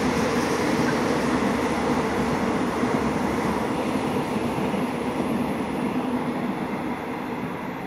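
Passenger train coaches passing at speed: the steady rolling noise of wheels on rails, fading near the end as the last coach goes by.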